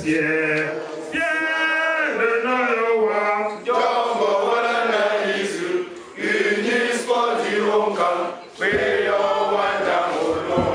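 A group singing together in a chant-like song, a man's voice leading through a microphone, with short pauses between phrases.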